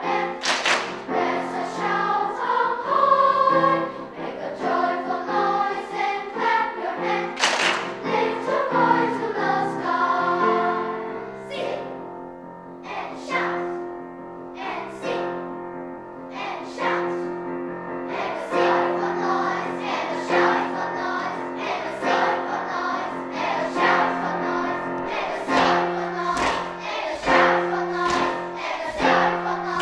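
Elementary-school children's treble choir singing a choral piece. The singing softens for a few seconds about halfway through, then builds again.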